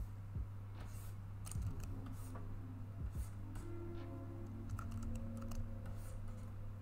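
Computer keyboard keys tapped now and then, scattered single clicks, over a steady low electrical hum.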